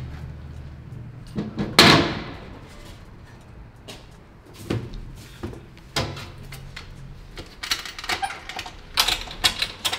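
Screen-exposure unit's lid and a screen frame being handled: a loud clunk with a short ring about two seconds in, a couple of single knocks midway, then a quick run of clicks and knocks near the end.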